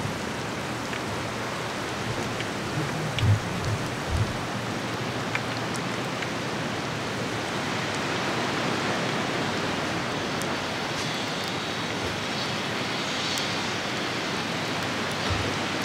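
Beer-battered halibut deep-frying in a pot of hot peanut oil: a steady sizzle. Two dull low bumps come about three and four seconds in.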